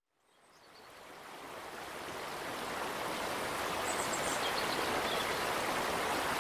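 Steady rushing of running water, like a stream, fading in from silence over the first couple of seconds, with a few faint high chirps near the middle.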